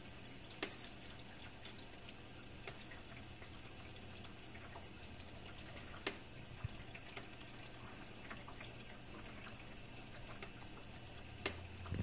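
Jenn-Air dishwasher running faintly early in its Quick Wash cycle: a steady low pump hum with water moving inside the tub, and a few light clicks.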